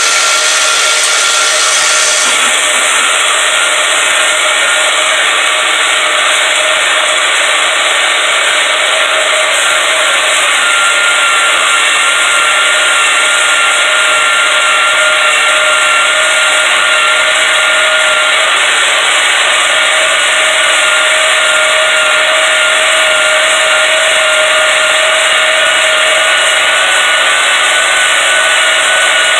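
Bauer bandsaw cutting through quarter-inch steel flat bar: a loud, steady cutting noise with a faint high whine, unbroken through the cut.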